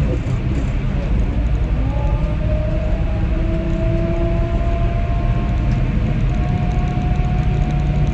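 John Deere 6120R tractor running at road speed, heard from inside the closed cab. A steady low drone carries a faint whine that climbs slowly in pitch as the tractor picks up speed.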